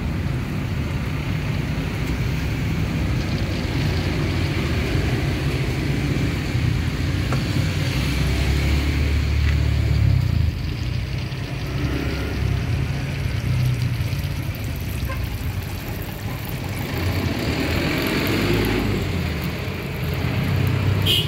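Steady low rumble of roadside traffic, with a faint hiss of oil frying in a wok.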